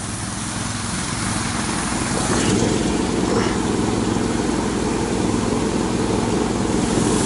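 Small engine of a motorized tracked snow tow (motodog) running steadily as it pulls along a snowy trail, getting somewhat louder about two seconds in.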